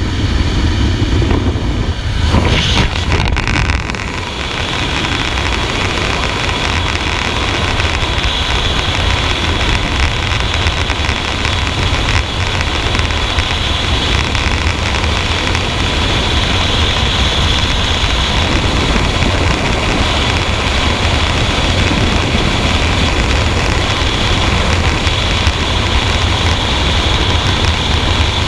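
Aircraft noise at the open jump door for the first couple of seconds. After the exit, a steady loud rush of freefall wind buffets the camera microphone.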